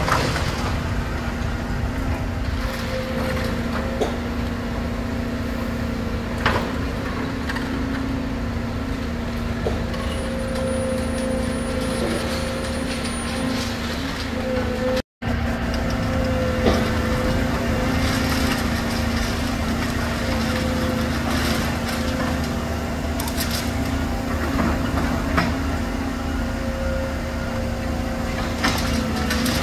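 Volvo demolition excavator's diesel engine and hydraulics running steadily, with a few sharp knocks and cracks from the crusher working concrete rubble. The sound cuts out for an instant about halfway through.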